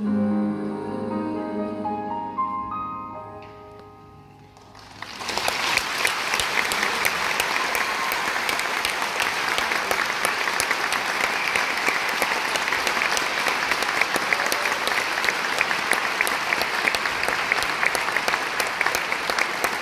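Grand piano playing its last notes, which ring on and fade out. About five seconds in, an audience starts applauding and keeps it up steadily.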